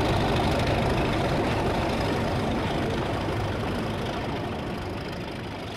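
Sound-fitted model locomotive playing a steady idling-engine sound, gradually fading out.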